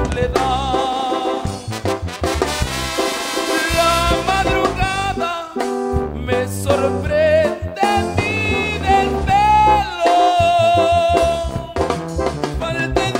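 Tierra Caliente banda music: an instrumental passage with brass carrying a melody of wavering held notes over a steady bass line.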